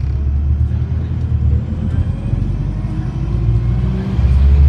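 Alexander Dennis Enviro400 double-decker bus, converted from hybrid to diesel-only drive, running along the road as heard from the upper deck. A low engine drone eases off about one and a half seconds in and comes back louder near the end, with a faint rising whine as it picks up speed.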